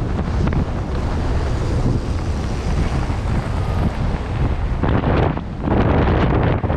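Wind buffeting an action camera's microphone as a mountain bike rolls fast downhill, mixed with tyre noise on dirt. Gravelly rushing surges come in near the end as the tyres cross loose gravel.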